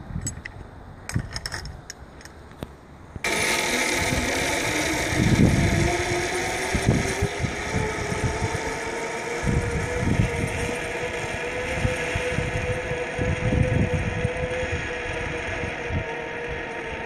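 Zip-line trolley pulleys running along a steel cable, a whirring whine that rises in pitch and then holds steady, with wind buffeting the microphone in heavy low thumps. It starts abruptly about three seconds in, after a few light clicks.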